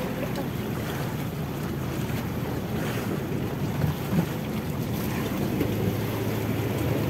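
Wind buffeting the microphone and sea wash aboard an outrigger fishing boat, steady throughout, over a faint steady low hum.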